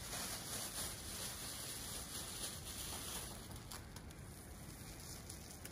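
Clear plastic cap crinkling and rustling as it is stretched over a person's head, with scattered faint crackles over a steady hiss.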